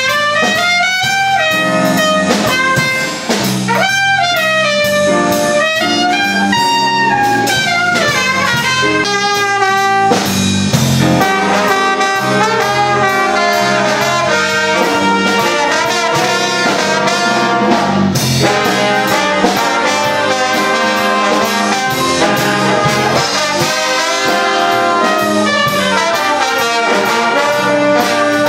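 Big band jazz from a live brass section of trumpets, trombone and saxophones over drums. For the first ten seconds or so a single horn line bends up and down in pitch; then, about eleven seconds in, the full band comes in with many notes held together.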